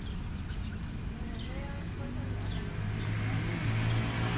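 Street traffic: a motor vehicle's engine rumbling low and growing louder toward the end, as if pulling up close, with a few faint high chirps over it.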